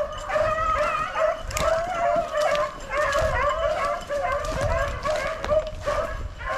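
A pack of beagles baying as they run a swamp rabbit, several hounds crying at once in a continuous overlapping chorus.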